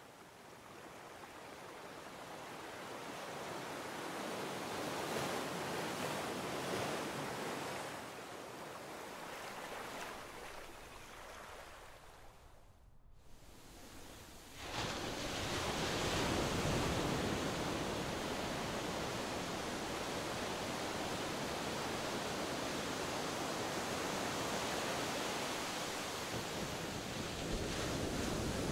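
Ocean surf washing on the shore: a steady rushing noise that swells and fades, dies away briefly about halfway through, then comes back suddenly louder and holds.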